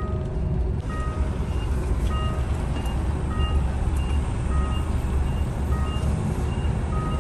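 A large truck's reversing alarm beeping in short, evenly repeated high tones over the low running of its diesel engine as it backs up, heard from inside the cab.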